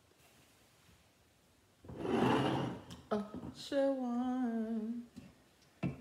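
A woman humming a short wavering tune with closed lips for about two seconds, after a brief noisy rush of sound. There is a single sharp knock near the end.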